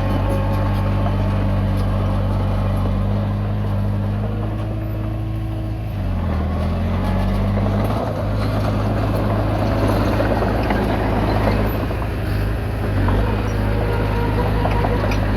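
Komatsu D20P bulldozer's diesel engine running steadily under load. Its pitch dips and recovers about six seconds in, and a rougher, noisier stretch follows.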